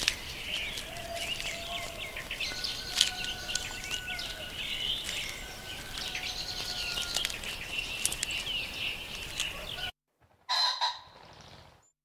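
A dense chorus of small birds chirping and twittering, with scattered sharp clicks and a couple of faint steady whistled notes underneath. It cuts off suddenly about ten seconds in, and a short, louder bird call follows.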